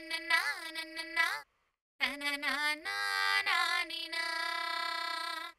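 A sung 'na na na' vocal sample played through a ring modulator, multiplied by a 300 Hz sine oscillator plus a constant offset of 1, so every frequency in the voice gets sidebands that sound like frequency-shifted copies above and below it, with the unaltered voice still heard. Two sung phrases with a short break about a second and a half in; the second ends on a long held note that cuts off just before the end.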